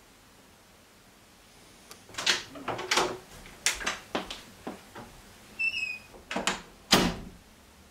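Interior door being opened and shut: a run of handle and latch clicks and knocks starting about two seconds in, a brief high squeak a little past two-thirds of the way through, and the loudest thump near the end.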